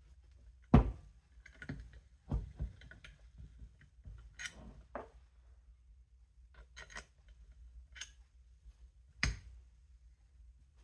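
Scattered knocks and clicks of metal gearbox parts being handled and fitted by hand, about eight in all, the loudest about a second in.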